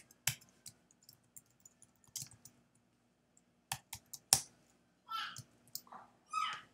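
Typing on a computer keyboard: quick, irregular keystroke clicks, with one sharper stroke a little past the middle.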